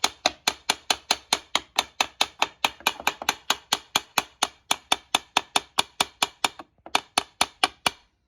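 Rapid, evenly spaced hammer taps, about five a second, with a short break near the end followed by a few more taps.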